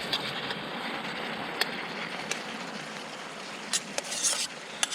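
Steady rushing of a rocky mountain stream flowing past. A few sharp clicks cut through it, and a short clattering scrape comes near the end.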